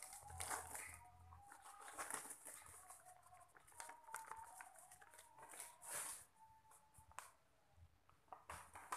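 Plastic snack packaging crinkling and rustling in short bursts with scattered crackles, as a snack pouch is pulled out of a clear plastic bag and handled.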